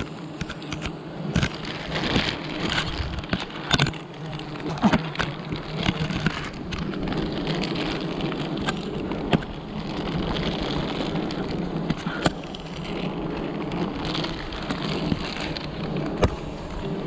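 Swarm of wild honeybees buzzing steadily around their exposed comb, over frequent crinkling and crackling of a plastic bag as the honeycomb is worked down into it by gloved hands.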